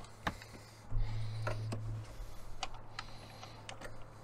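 Scattered sharp clicks of a socket ratchet and tools at work on the ignition coil pack's hold-down bolt, over a low steady hum that swells about a second in.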